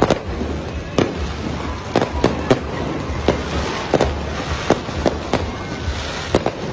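Aerial fireworks exploding overhead: a dozen or so sharp bangs at uneven intervals, over a steady low background rumble.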